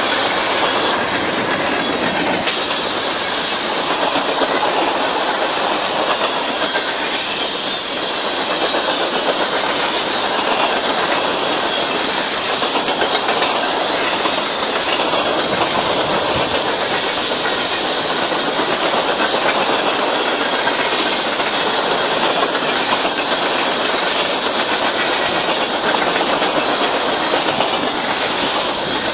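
Freight train rolling past close by: the last locomotive at the start, then covered hopper cars, their steel wheels on the rails making a steady loud rushing clatter.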